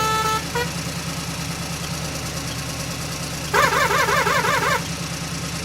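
A small engine running steadily with an even, pulsing rumble, the sound of the mini tractor. About three and a half seconds in, a rapidly warbling horn sounds for just over a second.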